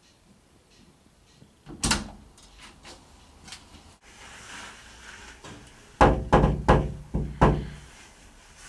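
A single thump about two seconds in, then about six quick knocks on a door near the end.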